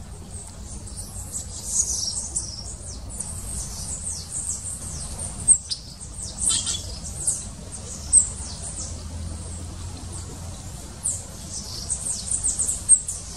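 Dense high-pitched chirping of birds: many short, rapid, overlapping notes, mostly sweeping downward, with a few louder calls standing out now and then.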